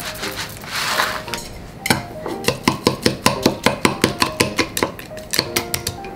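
Chopsticks beating an egg in a glass measuring cup: rapid clinks of the sticks against the glass, about six a second, starting about two seconds in.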